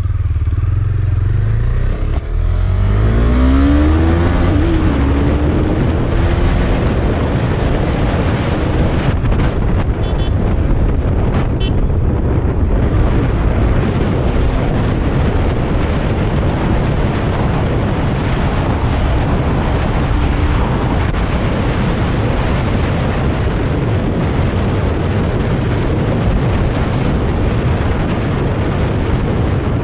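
KTM Duke 250's single-cylinder engine pulling hard, its note rising as the bike accelerates a few seconds in, then running at speed under a steady rushing noise.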